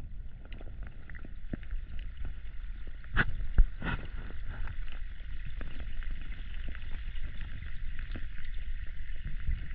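Kayak paddling: paddle strokes in the water with a few sharp knocks of the paddle against the hull about three to four seconds in, over a low rumble of wind on the microphone and a steady high hiss.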